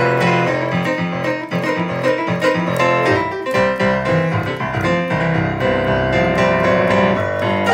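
Instrumental music led by a piano-like keyboard, playing chords and melody at a steady level.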